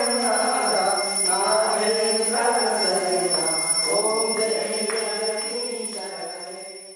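Voices chanting together in devotional worship, with a bell ringing steadily over them; the sound fades out near the end.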